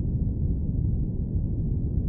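Steady airplane cabin noise: an even, deep rumble with little hiss on top, unchanging throughout.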